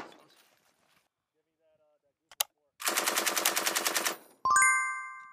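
Belt-fed machine gun firing: the dying echo of one burst, then a burst of about a second and a half at roughly ten rounds a second. Just after the burst, a loud bright ringing chime sounds and fades.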